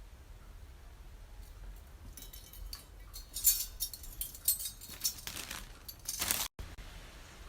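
Small metal earring parts clinking and scraping as they are handled, with a run of light clicks that is loudest around the middle and cuts off suddenly near the end.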